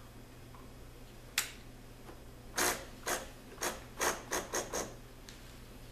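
Parts of an opened Saeco Magic Deluxe espresso machine being handled: a single click, then a run of about seven short scraping rubs that come faster toward the end.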